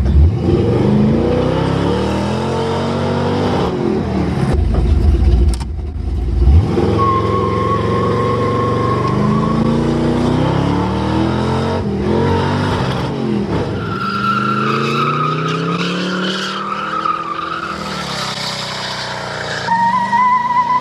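Car engine revving up and down again and again, with held high squealing tones like tyre squeal.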